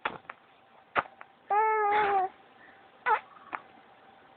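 Pet cat making odd vocal noises: one held, steady-pitched call of under a second, then a shorter call that dips and rises in pitch.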